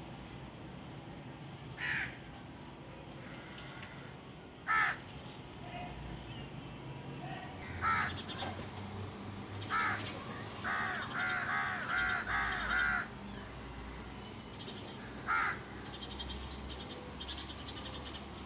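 Short bird calls at intervals, with a quick run of about five calls in a row a little past the middle.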